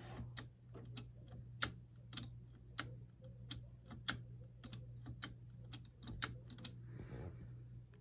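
Pull-chain switch on a vintage ceiling fan clicking as the chain is pulled again and again, about two sharp clicks a second, over a faint low hum.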